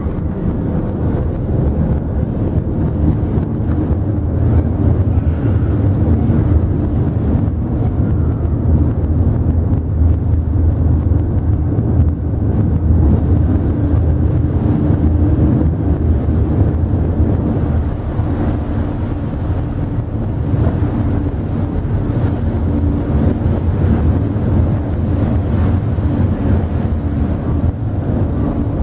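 Mersey ferry's diesel engines running steadily with a deep hum, heard from the open deck, with wind buffeting the microphone.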